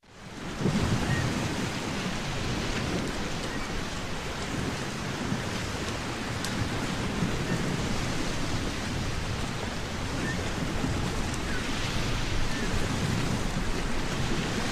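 Stormy sea: a steady rush of waves with a low rumble, fading in over the first second.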